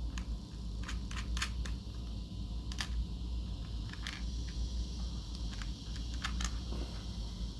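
Scattered light clicks and taps of small screws and hex-head fasteners being handled and fitted into a plastic sun visor, over a steady low hum.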